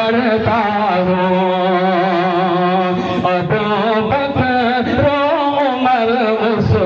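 A man singing a naat (Urdu devotional poem in praise of the Prophet) into a PA microphone, unaccompanied, drawing out long held notes that waver in pitch, over a steady low tone.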